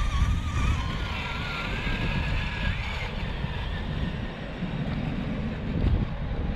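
Electric motors and gear drives of RC rock crawlers, a Redcat Gen8 and an Axial SCX10 II, whining and rising and falling in pitch with the throttle over heavy wind rumble on the microphone. The whine fades about three seconds in as the trucks pull away.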